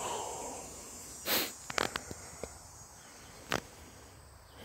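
A few sharp clicks and snaps in dry brush, with a short breath about a second in, over a steady high insect drone.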